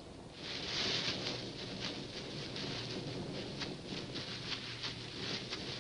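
Scuffling and rustling of a struggle on ground strewn with dry leaves, full of short crackles, over the steady low hum of an old film soundtrack.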